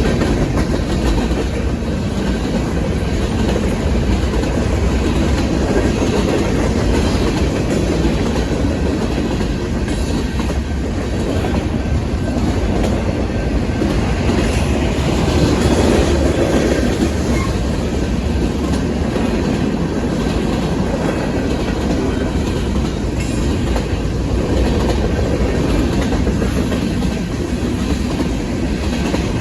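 Union Pacific freight train rolling past at a steady speed: a continuous rumble with the wheels clacking over the rails.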